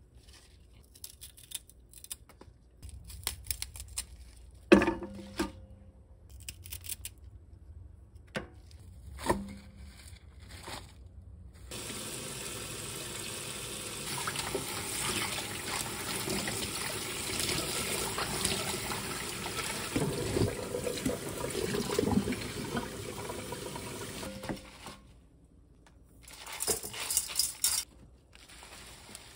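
Young radish greens rustling and their stems snapping as they are picked over by hand in a stainless steel sink, with two sharper knocks. About twelve seconds in, a kitchen tap starts running steadily into a bowl of the greens as they are rinsed, stops after about thirteen seconds, and the wet greens are handled again.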